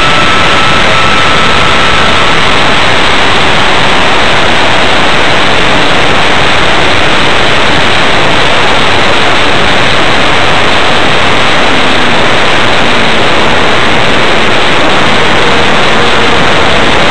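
Loud, steady wind roar over the onboard camera's microphone on an electric RC plane in flight, with a faint whine from the brushless motor and propeller in the first couple of seconds and again near the end.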